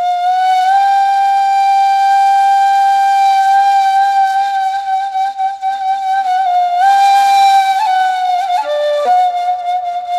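Background music: a solo flute holds one long note for about seven seconds, then moves through several shorter notes near the end.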